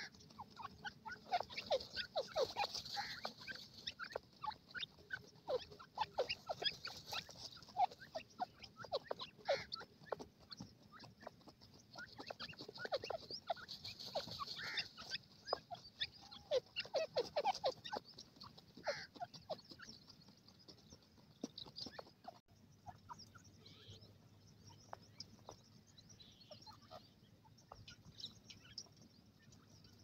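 Grey francolins giving soft, rapid clucking and chirping calls, many short notes close together. About three-quarters of the way through the calls become sparse and quieter.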